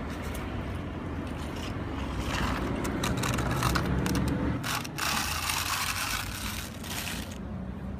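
Plastic bucket of a Bruder CAT compact track loader toy scraping and pushing gravel across wet concrete: a gritty scraping in two long strokes, starting about two seconds in and again around five seconds.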